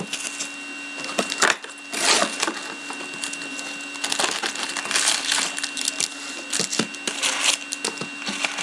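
Plastic wrapping crinkling as it is stripped off a hockey card box, then the cardboard lid opening and foil card packs rustling and clicking as they are pulled out and set down, in irregular bursts.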